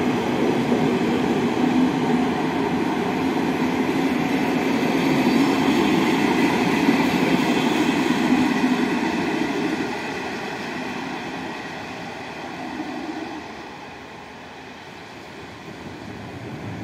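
PKP Intercity passenger train passing, its coaches' wheels running over the rails in a steady rumble, then fading after about ten seconds as the train draws away.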